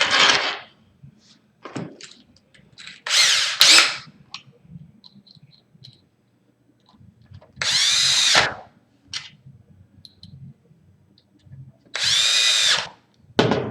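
Power drill driving wood screws to fasten a deadbolt latch into the door edge: three short runs of about a second each, the motor's pitch rising and falling on each run, with small handling clicks between.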